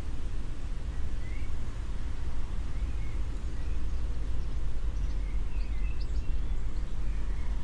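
Outdoor city ambience: a steady low rumble with faint, short bird chirps scattered through it, most of them about five to six seconds in.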